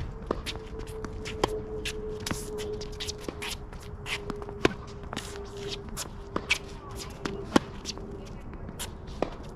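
Tennis rally from the baseline: tennis balls struck hard by rackets with sharp pops every couple of seconds, and players' shoes scuffing and shuffling on the court between the hits.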